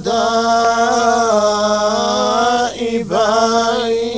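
Male voices chanting Quran recitation in the Moroccan Filali two-voice style, holding long melismatic notes with slow turns in pitch. There is a short break for breath about three seconds in, then the chant goes on.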